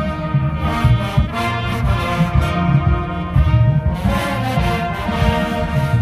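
Marching band playing, with the brass section carrying the tune over a pounding drumline.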